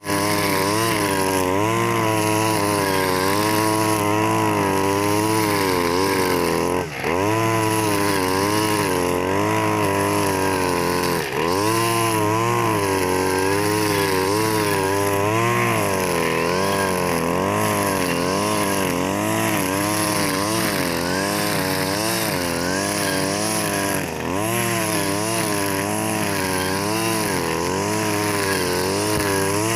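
Husqvarna 542RBS 42cc two-stroke backpack brush cutter running at high speed while its spinning square nylon line cuts through tall cogon grass. The engine pitch wavers constantly as the load changes, and it drops sharply for a moment three times.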